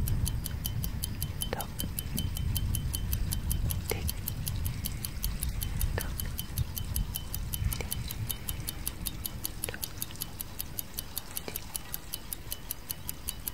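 Clock tick-tock sound effect ticking steadily, about four ticks a second, over a low rumbling background, with a faint short falling sound about every two seconds.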